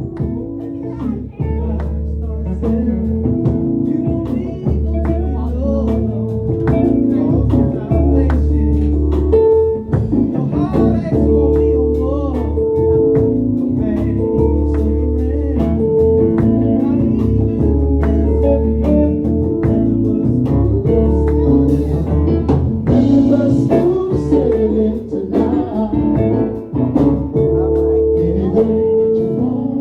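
Live gospel band playing with a steady beat and sustained bass notes that change every couple of seconds.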